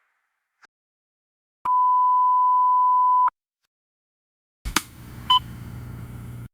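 Synthesized unlock/access sound effects. First comes a steady electronic beep of about a second and a half. A few seconds later a sharp click is followed by a low electric hum, with a short beep in it.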